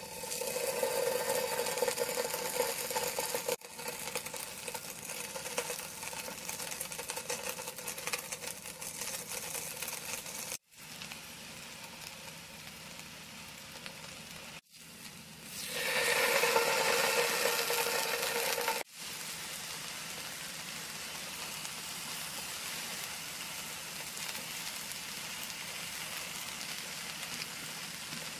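Grilling cheese, pineapple and vegetables sizzling in a hot nonstick frying pan: a steady sizzle that jumps in level at several cuts, with a steady hum beneath it in two louder stretches, near the start and about two-thirds of the way through.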